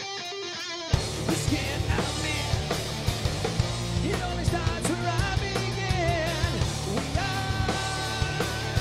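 Groove metal band playing live: a guitar alone at first, then about a second in the drums and bass crash in and the full band plays on with a steady drum beat and a wavering lead line above it.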